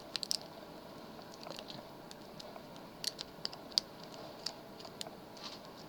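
Light, irregular metallic clicks and scrapes of a lock pick working the pins inside a pin tumbler lock, a few sharper ticks standing out among them.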